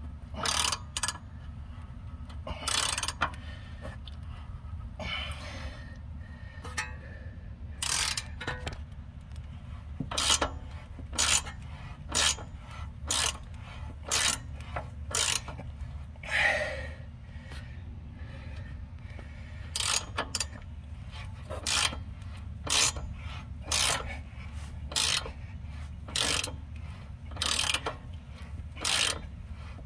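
A 3/8-inch-drive hand ratchet turning the nut of a homemade all-thread bushing press under load, its pawl clicking in a short burst on each return stroke. The strokes are irregular at first and settle to about one a second over a steady low hum.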